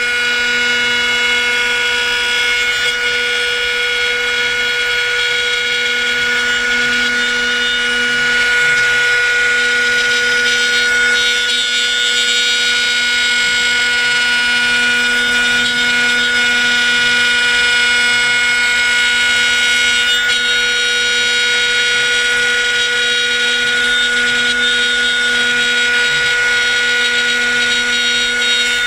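HTG6090 4-axis CNC router's spindle running with a steady high whine while its bit carves a wooden blank turning on the rotary axis. The cutting noise above the whine swells and eases as the bit moves over the carving.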